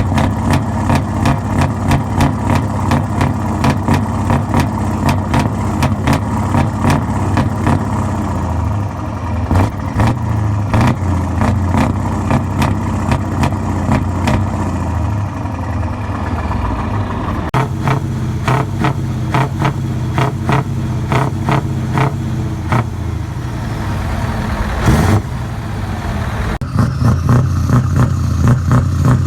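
Truck engines revving hard through open, straight exhaust pipes in quick repeated blips. The revving eases and changes character about two-thirds of the way through, with one short, sharper blast later on.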